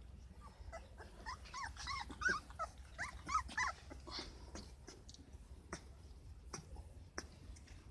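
Young Labrador puppies whimpering and squeaking in a quick string of short, high, rising-and-falling calls during the first half, followed by a few faint clicks.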